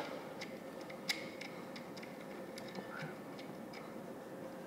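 Faint, irregular small metal clicks of a threaded hose union being handled and started onto the fitting of a pneumatic remote control handle.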